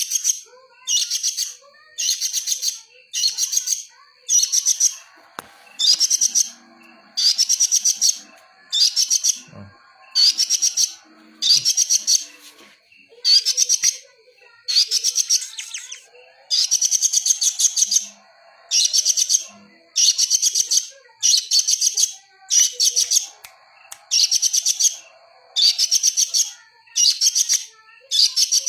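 Songbird calling in short, high, rapid chattering trills, repeated very regularly about once a second. A faint steady high tone runs underneath.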